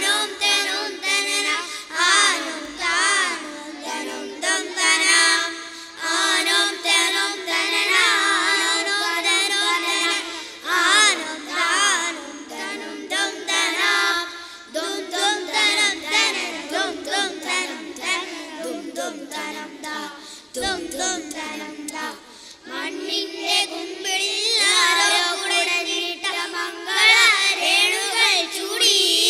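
A group of boys singing a song together in unison into stage microphones, phrase after phrase with brief breaths between.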